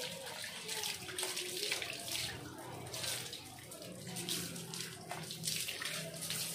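Water from a hose pouring and splashing onto bare feet and stone paving as they are rinsed, coming in uneven surges.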